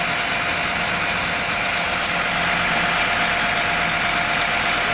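Coach bus diesel engine idling, a steady drone with a faint steady whine over it.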